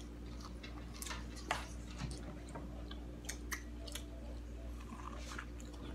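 Close-up crunching and chewing of corn on the cob coated in crushed Takis chips: irregular crisp crackles and clicks as the kernels and chip coating are bitten.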